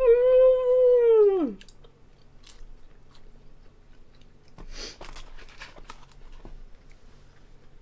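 A woman hums one long, high "mmm" lasting about a second and a half; its pitch rises, holds and then falls away. Quiet chewing and crunching of fast food follows, with a brief rustle of paper just before five seconds in.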